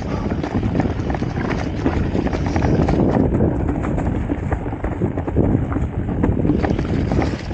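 Mountain bike riding fast down a trail covered in dry leaves: tyres rolling and crunching through the leaf litter over a steady low rumble, with a rapid clatter of knocks and rattles from the bike over bumps.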